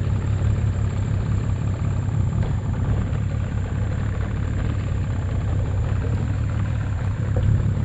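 Small boat's engine running steadily, a low drone, as the boat moves along a creek.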